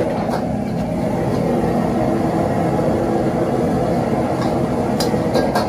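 Steady low roar of a restaurant kitchen's gas wok burner and extractor fan. A few light clinks of a metal ladle on bowls come near the end.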